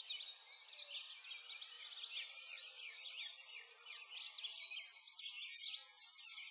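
A chorus of many small birds chirping together: quick, high chirps overlapping without a break.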